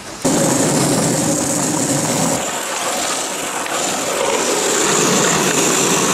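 Longboard wheels rolling fast over asphalt, heard close to the board: a loud, steady rolling noise that starts suddenly.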